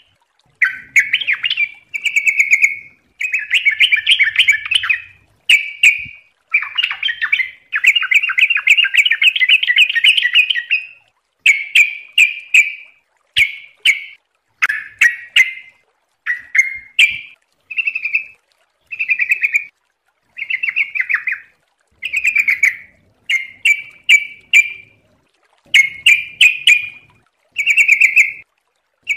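Yellow-vented bulbul (trucukan) singing rapid, bubbling chattery phrases one after another with short pauses, including a long unbroken run about eight seconds in.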